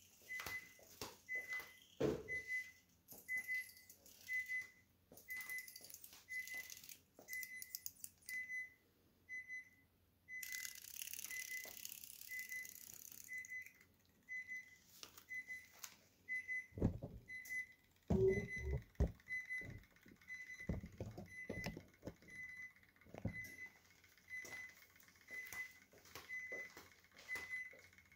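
A high electronic beep repeating steadily about three times every two seconds, with scattered light clicks and a few dull knocks past the middle.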